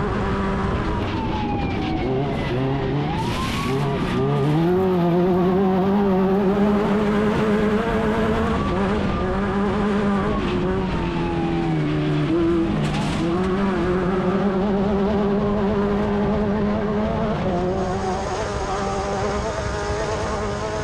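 Class 10 off-road race buggy's engine running hard at high revs. The pitch falls and climbs back twice, about three seconds in and again about twelve seconds in, over a steady rush of noise.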